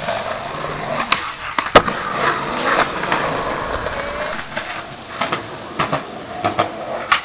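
Skateboard on concrete: wheels rolling with a rough rumble, broken by several sharp clacks of the board's tail and deck hitting the ground, the loudest about two seconds in.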